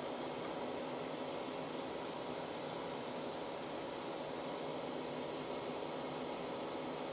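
Gravity-feed airbrush spraying, its high air hiss cutting in and out several times as the trigger is pressed and released, over the steady whir of a hobby spray booth's fan.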